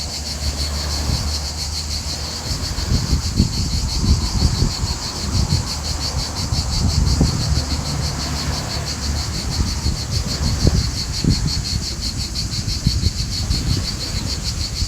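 Insects chirring steadily in a high, fast-pulsing drone, over a low, gusty rumble.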